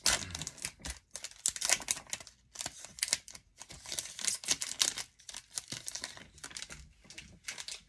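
Foil wrapper of an Upper Deck Series One hockey card pack crinkling and tearing as it is peeled open and the cards are pulled out, in quick irregular crackles.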